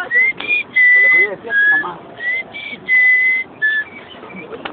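Someone whistling a short tune: about eight clear notes stepping up and down in pitch, the longest held about half a second.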